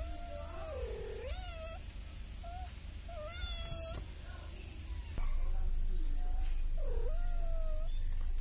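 Kittens mewing: a string of about seven short, thin mews, some dipping and then rising in pitch.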